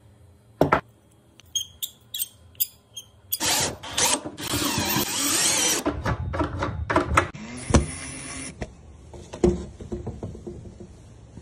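Hand work on metal hardware: a run of sharp metal clicks and knocks, with a few seconds of dense rasping or whirring noise in the middle and a couple more knocks near the end.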